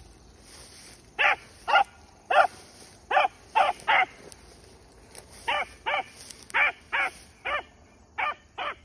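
Young rabbit hound barking on a rabbit's track, about thirteen short barks at roughly two a second in two runs with a brief pause between: the pup is giving voice as he trails the rabbit around its circle.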